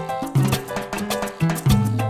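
Background music with a Latin, salsa-like beat: rhythmic percussion and plucked or keyed notes, with a deep bass coming in near the end.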